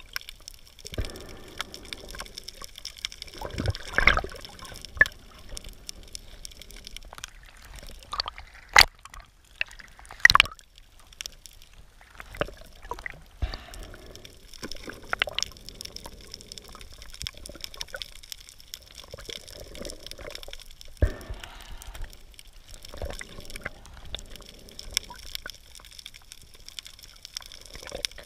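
Underwater sound recorded through the camera: a low, uneven water rush with irregular sharp clicks and cracks, a few of them much louder than the rest.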